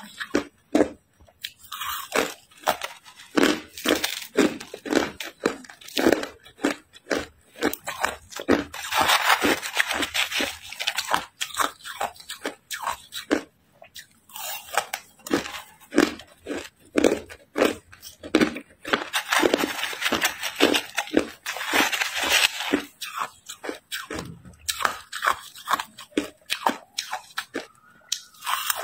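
Crushed ice being bitten and chewed: a steady run of short, crisp crunches, with two longer stretches of rapid crunching partway through.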